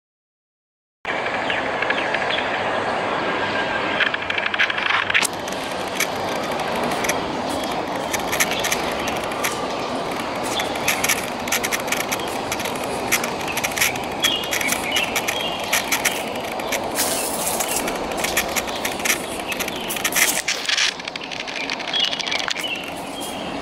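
Steady outdoor background rush with scattered short clicks and a few brief high chirps, starting after about a second of silence.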